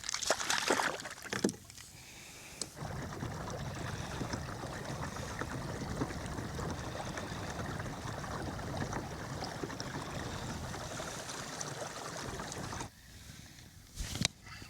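Some brief knocks and rustles, then a steady rushing of wind and water from a kayak moving fast across the water. It starts and stops abruptly, as if cut in.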